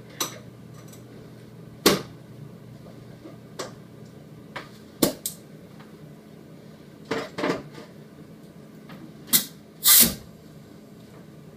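Scattered knocks and clanks, about ten in all at irregular spacing, from metal rifle parts and the steel sandblasting cabinet being handled as parts are loaded and its door is worked; the loudest two come close together near the end.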